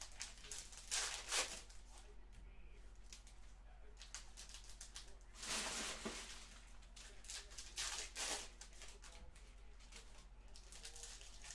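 Trading-card packs and their packaging being torn open and handled: several short rustling, tearing bursts, the longest about halfway through.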